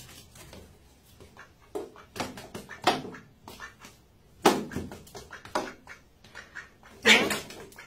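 A grey cat batting at a duck: irregular short taps and scuffles, about a dozen of them, with the loudest cluster about seven seconds in.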